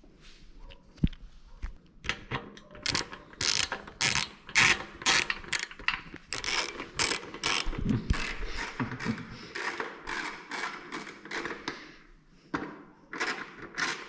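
Hand ratchet clicking in quick repeated strokes, about three clicks a second, as the screws holding the fuel cap are tightened. The clicking is sparse in the first two seconds and pauses briefly near the end.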